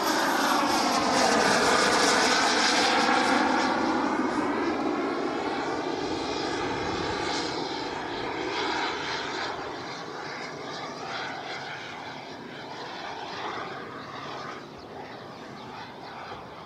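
Radio-controlled model L-39 Albatros jet flying past: its engine noise swells to its loudest about two seconds in, then fades slowly as the jet flies away.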